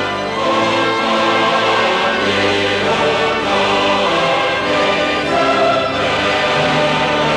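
Choral music with orchestral accompaniment, sustained voices over held notes.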